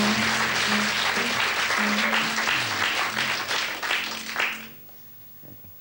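Studio audience applauding while a piano plays a short run of notes. Both die away about three-quarters of the way through, leaving a quiet room.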